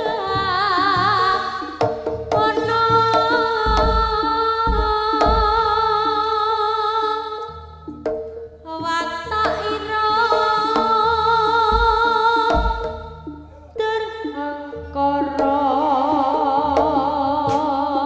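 Live jaranan music played loud through a PA: a wavering, vibrato melody line in long phrases with short breaks, over drum strokes, with a few heavy low thuds around four to five seconds in and again about twelve seconds in.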